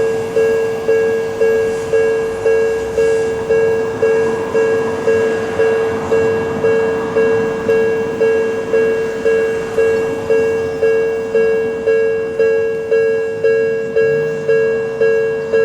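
Level crossing warning bell ringing steadily, just under two dings a second, each one fading before the next: the signal that a train is coming and the crossing is closed. A train's low rumble starts to come in near the end.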